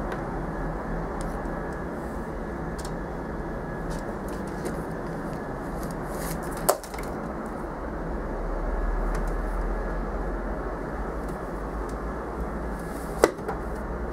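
Two sharp knocks, about six and a half seconds apart, over a steady background hiss.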